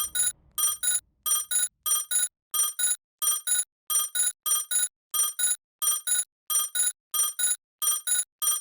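Japanese railroad crossing warning bell ringing in a steady, even kan-kan pattern, about four short rings a second.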